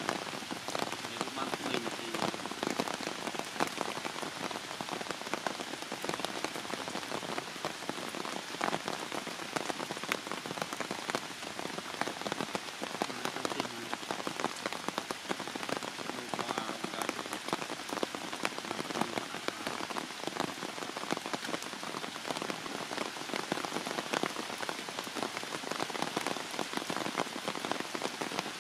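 Heavy rain falling steadily, a dense hiss of countless drops striking the ground, each heard as a fine tick.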